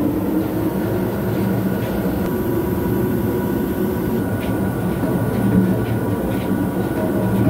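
Vertical turning lathe running, its table spinning a large steel drum: a steady machine hum with low tones and a few faint ticks.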